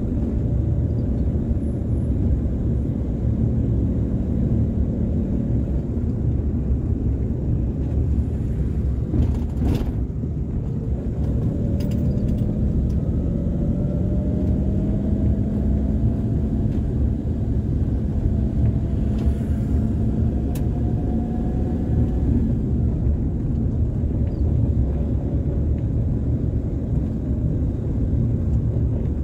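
A car driving: steady engine and road-noise rumble, with the engine note climbing gradually through the middle as it picks up speed.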